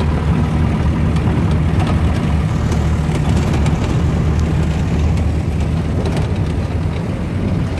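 Engine of an open 4x4 running steadily while it drives over a rocky riverbed, heard from inside the vehicle. Scattered clicks and knocks come through over the engine.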